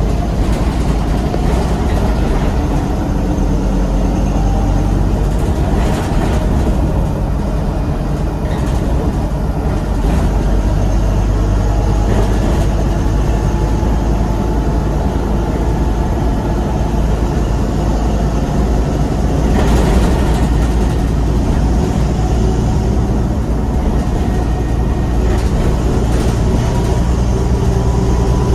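Scania N230UD double-decker bus heard from inside the lower deck while under way: its diesel engine and drivetrain run with a steady low hum, mixed with road noise. There is a short louder rush about two-thirds of the way through.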